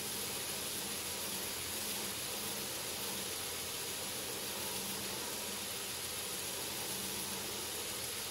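Belt grinder running, its abrasive belt grinding the bevel of a steel knife blade: a steady, even hiss over a faint low motor hum.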